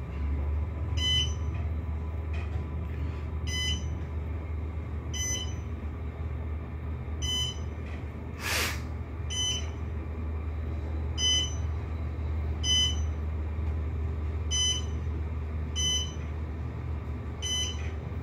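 OTIS traction elevator car rising: a steady low hum of the car in motion comes up as it sets off. A short electronic beep sounds about every one and a half seconds, once for each floor passed. There is a brief hiss about eight and a half seconds in.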